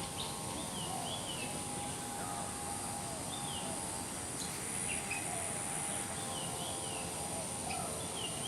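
Birds calling in short, repeated, down-slurred chirps about once a second, over a steady high whine and a background hiss.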